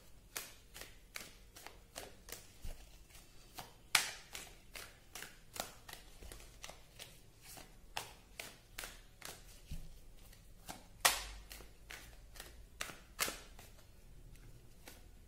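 A deck of tarot cards being shuffled by hand: a steady run of light card slaps, two or three a second, with a few louder snaps.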